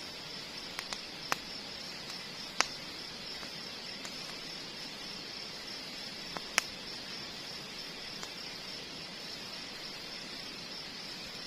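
A steady chorus of insects buzzing high and constant over a soft background hiss, with a few sharp clicks.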